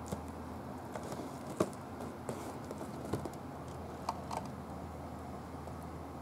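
Handling noise from a shrink-wrapped cardboard game box: about seven scattered light clicks and taps, the loudest a little under two seconds in, with a brief crinkle, over a steady low hum and hiss.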